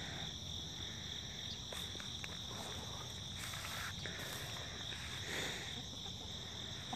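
Crickets singing in a faint, steady, high-pitched chorus, with a few soft rustles.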